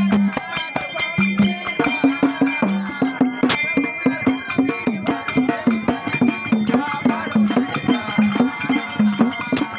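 Indian folk devotional music: a large barrel drum beaten by hand in a steady, fast rhythm, with small brass hand cymbals ringing and a voice singing over them.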